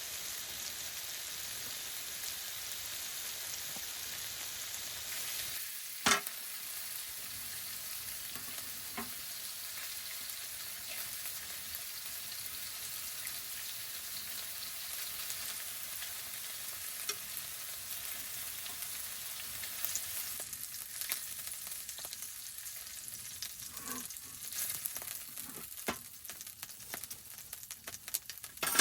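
Food sizzling and crackling in a hot pan, a steady hiss with scattered pops, one sharp click about six seconds in and a few more clicks near the end as the sizzle grows weaker.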